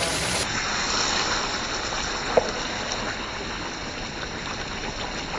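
Caldereta of beef, tomato and stock cooking in a pan on the stove, a steady hiss, with one sharp tap about two and a half seconds in.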